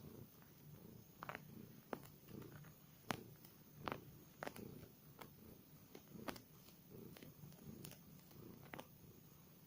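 Domestic cat purring steadily and faintly, with scattered short sharp clicks over it.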